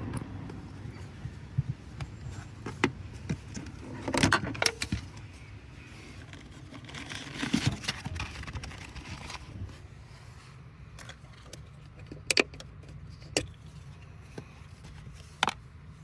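Scattered metallic clicks and clinks with short bouts of rattling, as of hand tools or metal parts being handled during a car battery change. The clatter is busiest about four seconds in and again around eight and twelve seconds, over a low steady hum.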